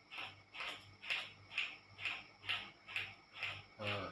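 Plastic bottle cap scraped in repeated strokes across a person's skin during kerokan, about two short rasping 'krok' strokes a second.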